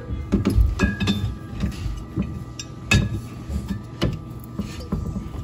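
Glass wine bottles knocking and clinking against one another and the wine fridge's racks as bottles are handled: several scattered knocks, the loudest about three seconds in.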